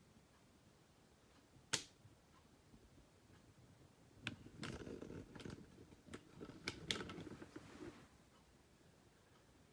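Small plastic K'nex parts being handled: a single sharp click, then a few seconds of clicks and rattling near the middle.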